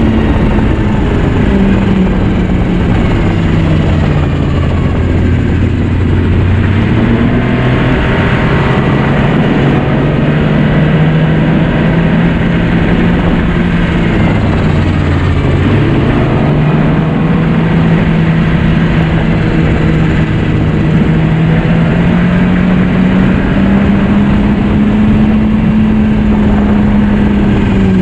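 2009 Yamaha Vector snowmobile's four-stroke three-cylinder engine running under way on the trail, over a constant rush of track and air noise. The engine note drops a little a couple of seconds in as the throttle eases, holds steady, then climbs gradually near the end as the sled speeds up.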